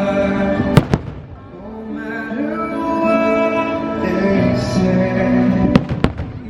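Orchestral fireworks-show soundtrack music, with sharp firework bangs cutting through it: two in quick succession about a second in, and two more near the end.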